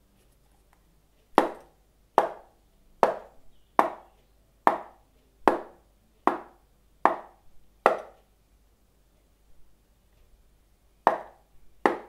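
Hand knocks on a small hand-held box, struck in a slow, even beat about 0.8 seconds apart. Nine knocks come in a row, then after a pause two more near the end, each with a short ringing decay.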